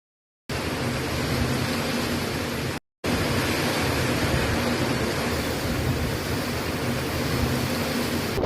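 Steady rushing noise of storm wind and water during a cyclone. It starts about half a second in and breaks off for a moment near three seconds before carrying on.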